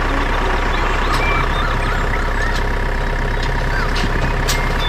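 A heavy truck's engine running steadily with a low rumble, with short rising-and-falling whistles over it.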